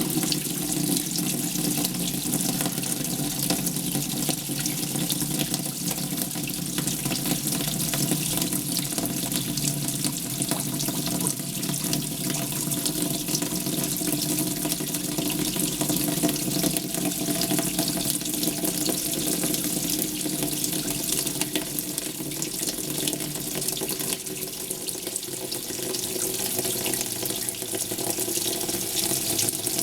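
Hitachi NW-42EF washing machine with water pouring steadily into its tub, a continuous rushing flow.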